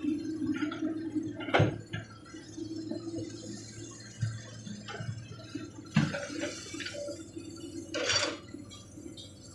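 Hydraulic excavator running with a steady low engine hum, and sharp metallic clanks and knocks three times, the last a short rattle near the end.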